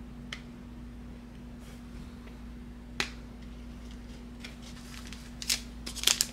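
Sharp clicks and snaps of trading cards being handled: one loud click about three seconds in and a quick run of clicks near the end, over a steady low hum.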